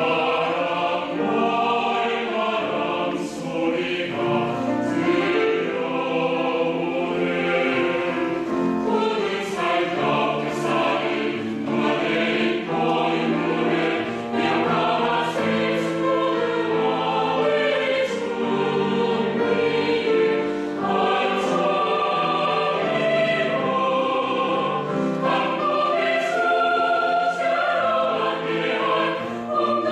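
Choir singing a Korean choral song in several parts, with sustained, full chords that move steadily without a break.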